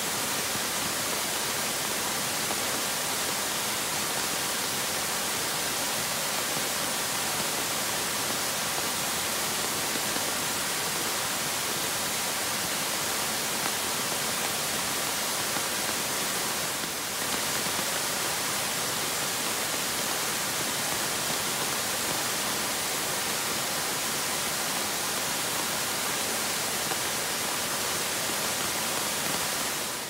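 Waterfall tumbling down a tiered rock face: a steady, full rush of falling and splashing water, with a brief slight dip in level about halfway through.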